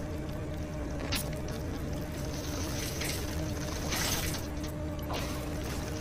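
Microwave oven humming steadily while a mobile phone inside it burns and melts. There is a sharp click about a second in, then hissing and crackling from about two seconds in, loudest around four seconds, as the phone's casing bubbles up.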